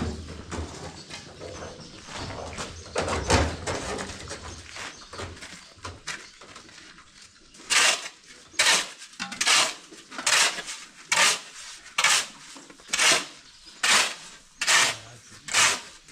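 Irregular knocks and clatter, then from about halfway in a steady run of short rasping strokes, about one a second.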